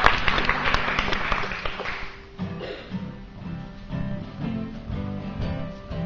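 Acoustic guitar strummed in a steady rhythm. Over the first two seconds a wash of clapping and crowd noise dies away under it.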